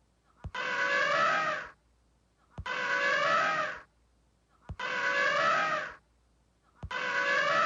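Elephant trumpeting, one identical call repeated about every two seconds, each call short and preceded by a sharp click, as in a looped sound effect.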